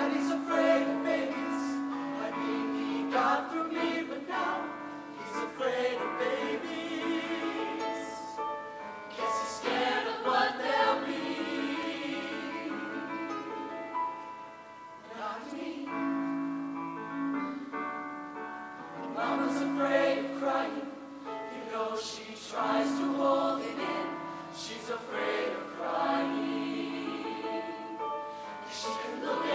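A mixed-voice show choir singing in harmony over an accompaniment of long held chords.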